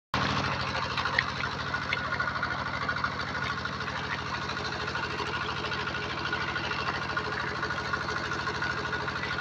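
Small pump engine running steadily with an even, rapid chugging, driving the pump that empties a fish pond.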